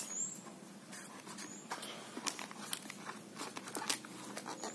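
Hands handling cardboard and clear tape: irregular light taps, clicks and rustles as the tape is pressed onto a cardboard tube.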